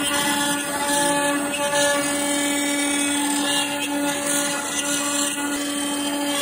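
CNC router spindle running at speed while its bit cuts a pattern into a glued-up wooden panel: a steady high whine with a hiss of cutting chips over it.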